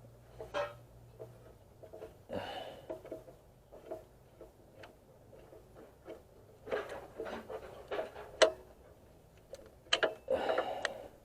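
Irregular sharp metallic clicks and clinks of hand tools working on the truck's oil drain plug, with short bursts of rustling movement in between.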